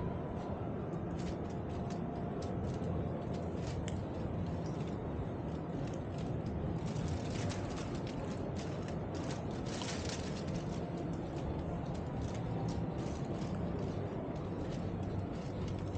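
Busy exhibition hall background din, with scattered light clicks and taps and two short rustling noises about halfway through.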